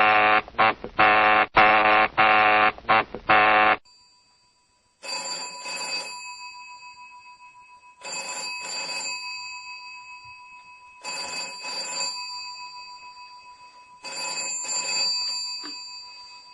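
A loud held sound made of many tones, broken by short gaps, cuts off abruptly about four seconds in. Then a telephone rings in double rings, four times about three seconds apart, over a faint steady tone.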